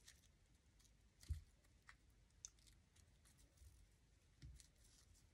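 Near silence with faint handling noise: small clicks and rustles of fingers shaping a ribbon bow, with a soft low thump about a second in and another near the end.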